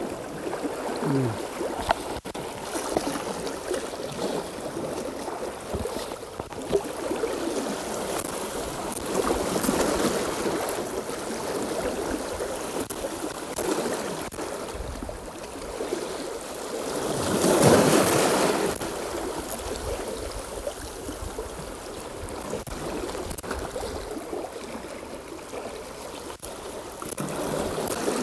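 Choppy sea water washing and splashing against the shore in a steady wash, surging loudest about seventeen seconds in.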